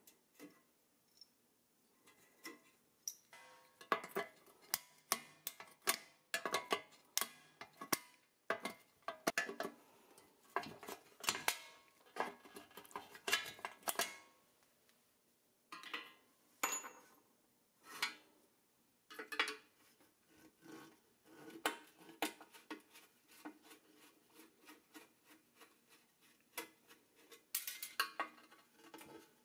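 Hand tools clicking and clinking against the painted metal body of a 1950s Doepke Jaguar XK120 toy car as it is taken apart: needle-nose pliers working at its parts and a screwdriver turning its screws. Irregular sharp clicks and taps, with a quieter stretch about halfway through.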